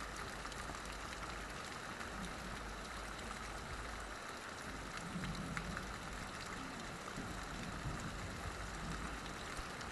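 Heavy thunderstorm rain pouring down, a steady, even hiss of rain hitting the ground and patio.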